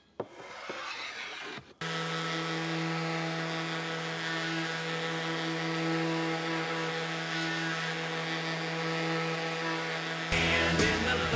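A hand tool scraping across a wooden tabletop for under two seconds. Then a random orbital sander with a dust-extraction hose starts and runs steadily with an even hum. Music comes in near the end.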